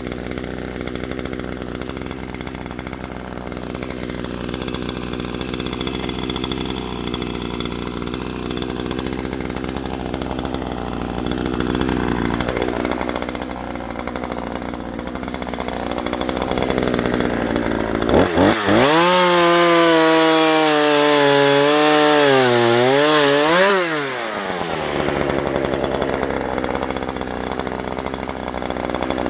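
An engine runs steadily throughout. About eighteen seconds in, a small high-revving engine comes up loud for about six seconds, its pitch wavering up and down, then drops away.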